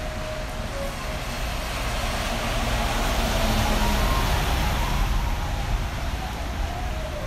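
A vehicle passing by on a rain-wet street, its tyre and engine noise swelling to a peak about three to four seconds in and then fading.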